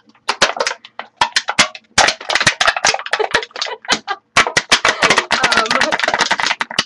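Aluminium drink cans being crushed by hand: a run of sharp crinkling cracks and pops as the thin metal buckles. The cracks are sparse at first and come thick and fast from about two seconds in.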